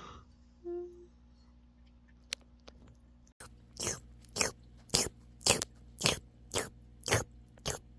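A person making wet, slurping licking noises with their mouth to imitate a cat grooming: eight strokes about two a second, starting about halfway in.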